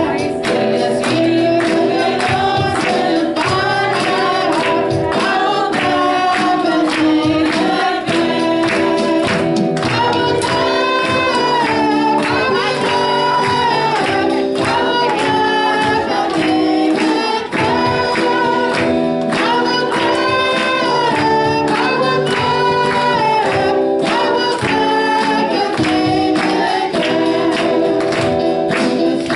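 Gospel worship song sung by a group of voices over sustained instrumental chords with a steady beat.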